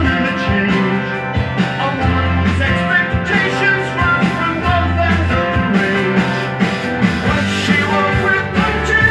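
Rock music with singing, played from a vinyl record on a Dual 1257 belt-drive turntable.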